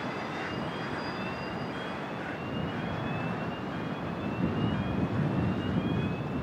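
Steady distant rumble of heavy traffic at a port. Above it a faint thin whistle rises slowly and repeats about once a second.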